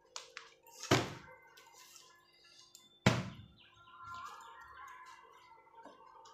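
A bottle tossed in a bottle-flip game landing with a thud, twice, about two seconds apart.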